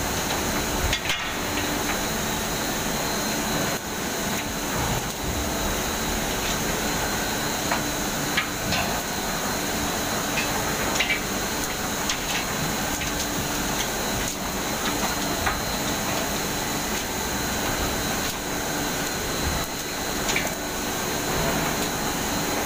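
Palm oil mill machinery running with a constant hum and whine, and irregular metallic clanks and knocks from a slatted chain conveyor carrying oil palm fruit bunches.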